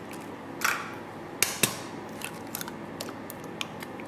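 A raw egg cracked against a stainless steel mixing bowl and broken open: a sharp crack about two-thirds of a second in, then two quick clicks of shell around a second and a half.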